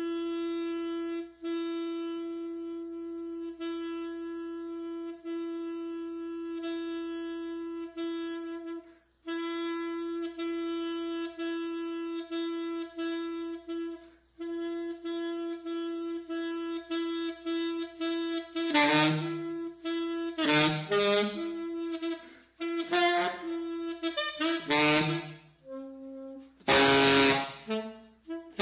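Solo alto saxophone: one note held with short breaks for about eighteen seconds, then loud, harsh bursts that leap between low honks and shrieking high notes.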